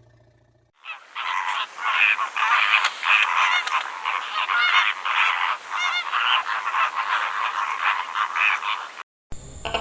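A flock of waterfowl calling over one another, many overlapping calls with no pause. It starts about a second in and cuts off abruptly near the end.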